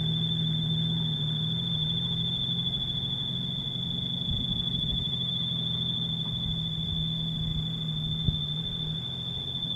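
Wires whistling in the wind: a single steady high-pitched tone that holds without change, over a low steady hum.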